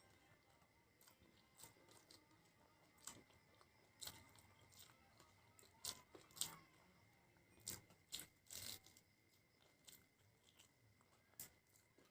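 Close-miked chewing and crunching of food, with irregular sharp crunches and mouth clicks, the loudest about six and a half seconds in. A faint, steady high tone sits underneath.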